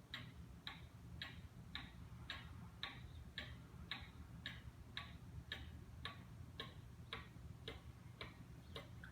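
Pendulum clock ticking steadily, a little under two ticks a second: the escapement of a circa-1890 Black Forest Hunters cuckoo clock running. Faint, over a low steady hum.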